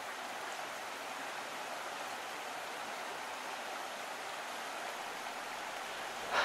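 Steady rushing of a stream, an even hiss with no distinct events. A short, soft sound right at the end.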